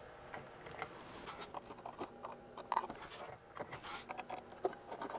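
Faint scattered clicks and small knocks of hands working at the metal front panel and selector knob of an old resistor box as it is taken apart.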